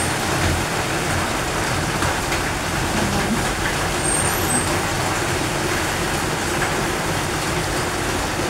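Heavy rain falling steadily, an even, unbroken rush.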